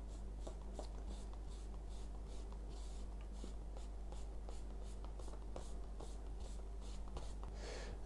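A 1.5-inch flat brush swept back and forth over watercolour card, laying on paint in a steady run of faint, soft swishes, about three a second.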